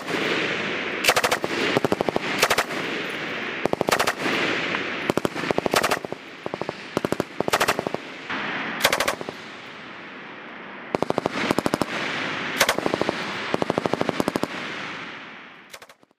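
M249 light machine gun firing 5.56 mm rounds in short automatic bursts of a few shots each, one burst after another, with echo ringing on between bursts. The sound fades out near the end.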